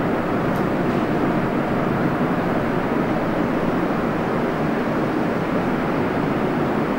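Steady, even rumble of subway station background noise, with no distinct events.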